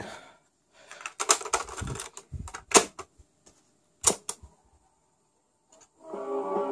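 Plastic and mechanical clicks as a cassette goes into a Marantz Superscope CD-330 deck and its door snaps shut, then a clunk as the Play key is pressed. About a second and a half later guitar music starts playing from the tape through the deck's speaker: the repaired transport is running.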